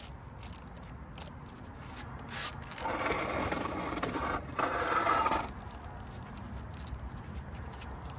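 Cordless drill running in two short bursts about three seconds in, the second starting just after the first stops.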